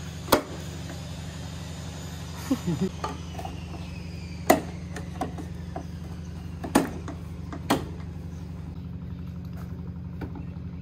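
Sharp knocks as white square-tube frame pieces of a hydroponic stand are fitted and pressed together, four loud ones spread over several seconds with a few lighter taps between, over a steady low hum.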